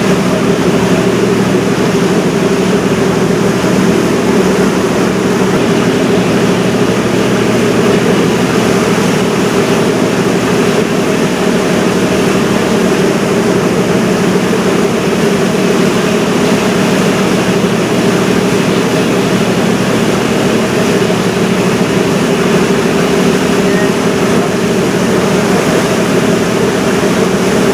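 Steady drone of a river cruise ship's engines and machinery, an unchanging low hum.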